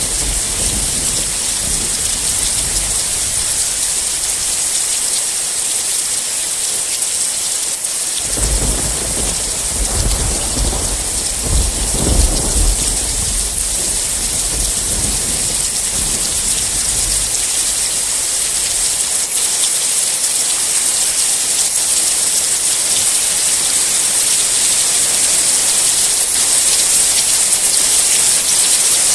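Heavy steady rain with a thunderstorm: low thunder rumbles early on, then a long roll of thunder begins about 8 seconds in, peaks with sharp cracks a few seconds later and fades out over several seconds, leaving the rain hissing alone.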